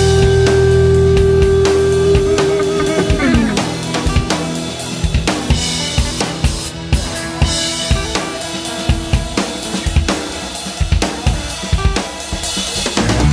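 Background music with a steady drum-kit beat; a held note slides down in pitch about three seconds in.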